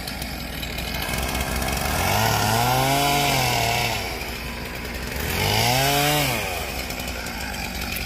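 A chainsaw idling, revved up and let back down twice, each rev lasting about two seconds.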